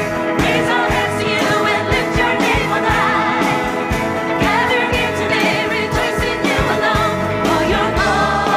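Live praise band performing an upbeat worship song: several singers singing together over electric and acoustic guitars with a steady beat.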